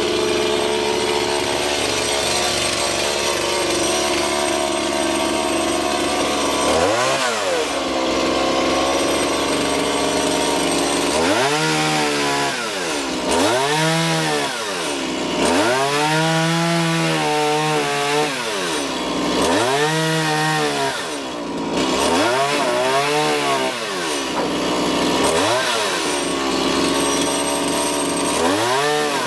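Chainsaw cutting trees: it runs steadily for the first several seconds, then is revved up and let back down again and again, about every two to three seconds, as it bites through saplings and brush.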